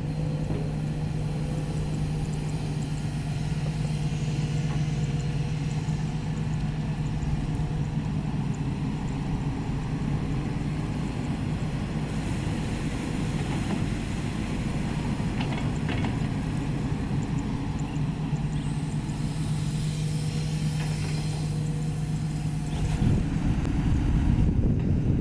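Sany SY215C crawler excavator's diesel engine running steadily, getting louder near the end as it is worked harder.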